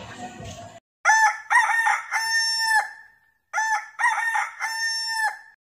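Rooster crowing twice, the same long cock-a-doodle-doo heard two times in a row, each about two seconds long.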